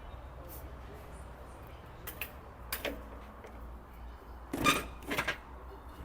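Metal parts and tools of a dismantled truck engine being handled, giving several short clanks and knocks over a low steady hum. The loudest clanks come in a cluster about three-quarters of the way through.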